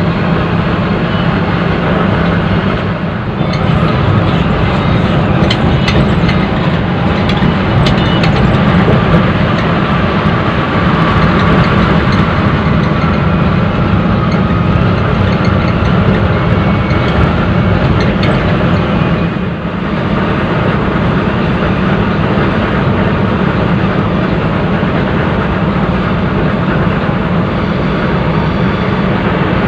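Cabin sound of a coach cruising on a wet highway: a steady low engine drone under a loud hiss of tyres, rain and wind. It drops briefly twice.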